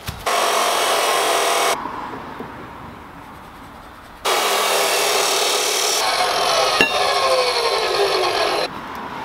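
Chop saw cutting steel strut channel: a loud, harsh grinding rasp in two stretches, a short one right at the start and a longer one from about four seconds in, each cutting off abruptly.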